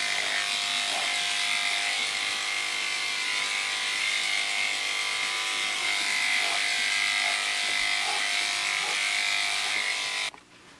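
Wahl electric dog clipper with a #30 blade and snap-on comb attachment running with a steady hum as it is drawn through the dog's neck hair, then switched off abruptly about ten seconds in.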